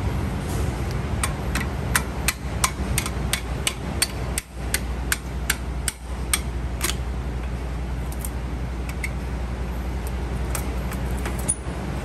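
Sharp metallic clicks and taps, two or three a second for several seconds, as the pad retaining pin and clip are worked out of a truck's air disc brake caliper, over a steady low hum.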